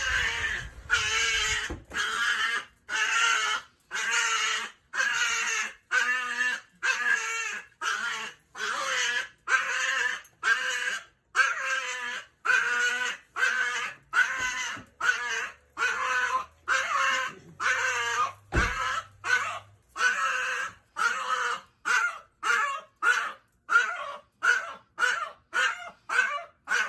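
A dog vocalizing in a long run of repeated drawn-out calls, each under a second. They come about one a second at first and faster toward the end.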